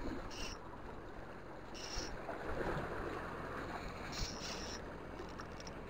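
Wind buffeting the microphone over the wash of the sea, with three brief high-pitched rasps.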